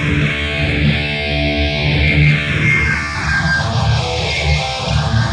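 Electric guitar played through a Boss Katana Gen 3 212 amp, with a slow phaser-type sweep rising and falling through the tone.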